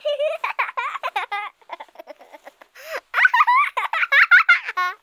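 High-pitched, childlike voices giggling and babbling in short bursts, with a brief lull in the middle.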